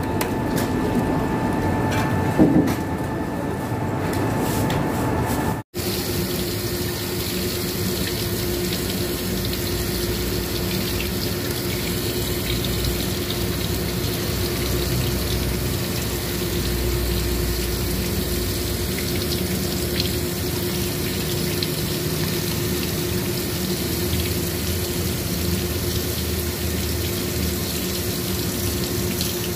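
For the first few seconds, a fish being scaled with a knife on a wet surface, with a sharp knock about two and a half seconds in. After a sudden cut, tap water runs steadily over a grouper rinsed by hand in a stainless steel sink, with a faint steady hum under it.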